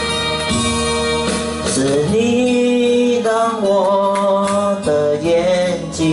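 Backing-track music for a slow Mandarin pop ballad, its introduction playing with a held melody line that wavers slightly in the middle.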